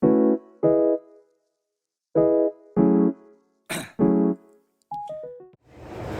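Electric piano playing short, separate chords with silent gaps between them, then a quick run of four falling notes near the end. A steady background noise fades in just after.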